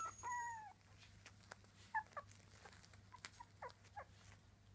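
Three-week-old miniature dachshund puppies squeaking: one longer whine just after the start, then a few faint short squeaks. Light clicks come from their paws scratching on a puppy pad.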